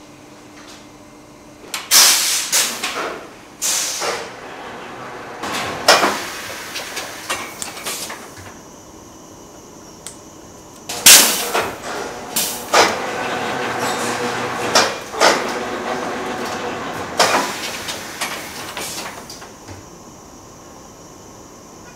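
Plaid scarf fabric being handled: a series of loud rustling swishes and flaps as lengths of cloth are pulled, wrapped and shaken, in two bouts with a pause in the middle, over a steady background hum.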